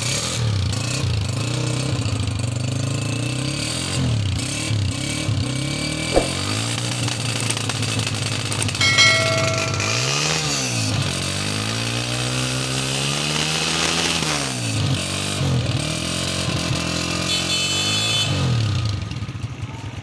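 Honda CG125's single-cylinder four-stroke engine running, idling steadily at first and then revved from about halfway: a short blip, a longer rise and fall in revs, and another blip near the end.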